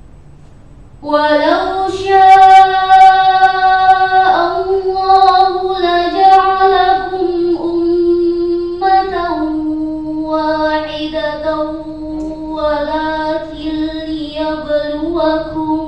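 A teenage girl chanting a Qur'an recitation in murattal style into a microphone. Her voice comes in about a second in and holds long steady notes, stepping down in pitch about nine seconds in, and stops just before the end.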